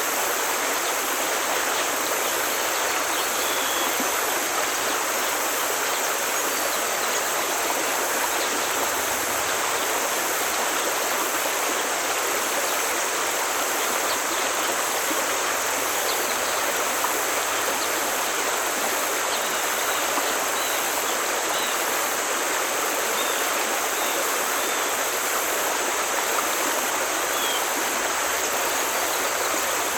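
Forest stream rushing steadily over rocks, an even, unbroken flow of water.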